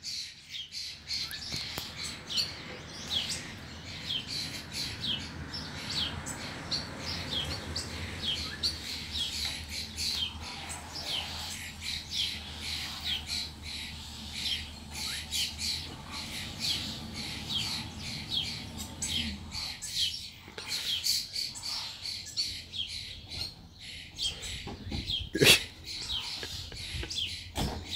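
Many birds chirping and screaming from the trees, a steady stream of short, sharp, falling calls, over a low steady rumble. A single sharp knock comes near the end.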